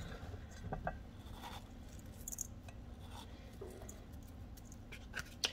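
Faint scattered light ticks and rustles of a hand sprinkling salt over a rice stuffing mixture in a stainless steel bowl.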